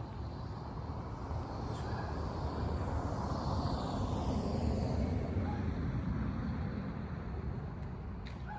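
A vehicle passing by: a noisy rumble that builds to a peak about halfway through and then fades away.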